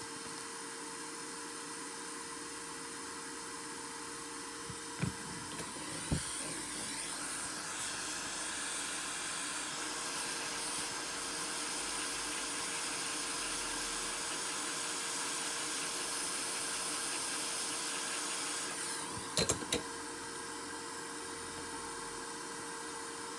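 A small electric tool runs with a steady rushing whir. It is switched on with clicks about five and six seconds in and off with a cluster of clicks near the end, over a constant electrical hum.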